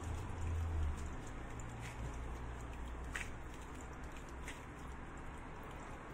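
Soft squishing of a margarine-and-flour cookie dough being kneaded and squeezed by hand in thin plastic gloves, with a few faint ticks and crinkles. A low rumble sounds in the first second.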